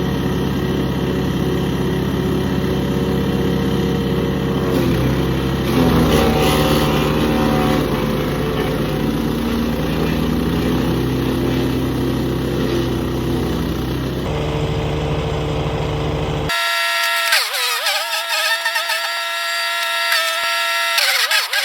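Small gas engine of a wood chipper running steadily, its pitch dropping about five or six seconds in as it comes under load. After a cut, the engine gives way to music for the last five seconds.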